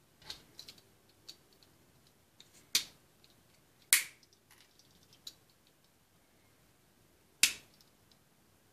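Scattered sharp clicks and taps from hands working a silicone mold, a snap-off craft knife and a small cast resin bushing on a plastic cutting board, with three louder clicks among them.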